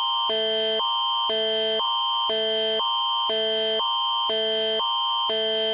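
Canadian emergency alert attention signal, from an Alberta Emergency Alert province-wide test: a loud, steady electronic alarm tone that alternates between two tone patterns about twice a second, over a constant high tone.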